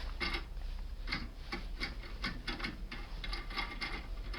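Irregular rapid ticking and clicking of a foil-wrapped lockpick tool being worked back and forth inside an Iseo R7 cylinder lock.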